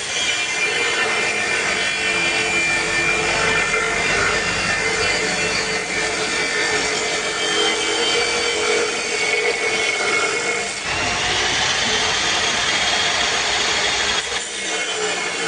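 Power cutting machine running and cutting, a steady grinding noise with a whine over it; the sound shifts briefly about eleven seconds in and again near the end.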